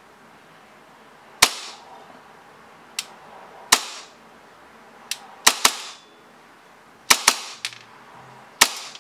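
Gas blowback airsoft pistol (a Tokyo Marui Hi-Capa type fitted with a 3D-printed Kensprop blowback unit) fired semi-auto through a chronograph: a string of sharp, loud cracks as the slide cycles, about ten shots at uneven spacing, some in quick pairs.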